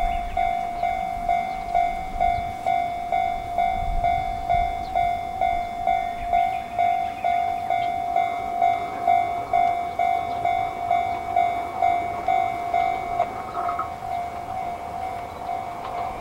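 Japanese railway level crossing alarm ringing, an electronic bell pulsing evenly about twice a second, warning of an approaching train. A second, higher tone joins about halfway through.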